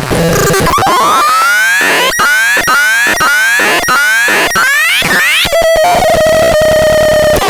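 Absurdon X1 noise box making harsh electronic tones: a run of rising pitch sweeps, about two a second, then a steady held tone with a few clicks over the last two seconds.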